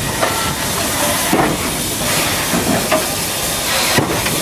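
CK124 steam tank locomotive letting off a loud, steady hiss of steam. A couple of sharp metallic knocks come through it, about a second in and near the end.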